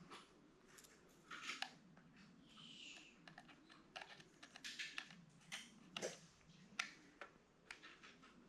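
Faint, scattered light clicks and a couple of short rustles from small plastic toy-drone parts and packaging being handled.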